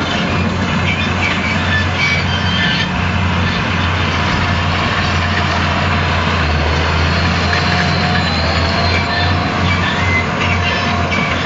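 Claas Ares 816 tractor's diesel engine running steadily under load while the Claas Variant 180 RotoCut round baler it tows rattles and clatters as it picks up and bales straw.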